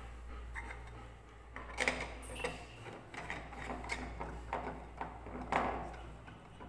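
Stainless-steel screw cap being twisted onto a glass water bottle: a string of irregular clicks and scrapes from the threads and from the bottle being handled, the loudest about two seconds in and again near the end.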